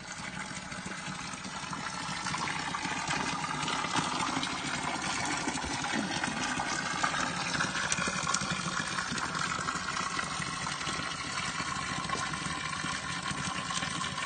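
Spring water pouring in a steady stream from a spout and splashing on the ground below, growing louder about two seconds in and then holding steady.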